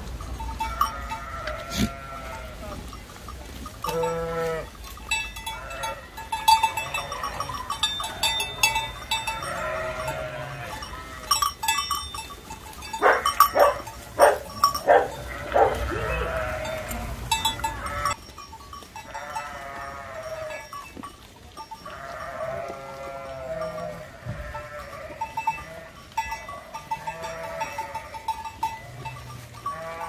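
A flock of sheep bleating again and again, with small bells tinkling among them. About halfway through, a run of sharp clicks and knocks close by is the loudest sound.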